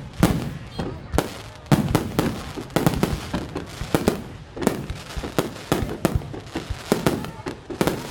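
Fireworks bursting overhead: a continuous run of sharp bangs, several a second at irregular spacing, each trailing off into an echoing rumble.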